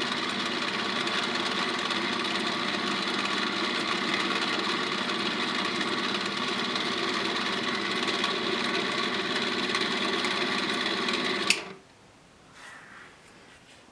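A small motor running steadily, then switched off abruptly with a click about eleven and a half seconds in, leaving only faint scratchy handling sounds.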